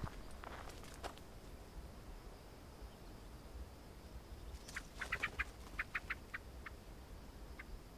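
A bird calls in a quick run of about eight short, sharp notes lasting a little under two seconds, starting nearly five seconds in. Before it come a couple of soft footsteps on a dirt track.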